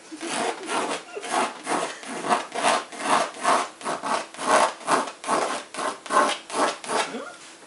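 Pencil shading on a stretched canvas: repeated back-and-forth scratching strokes, about two to three a second.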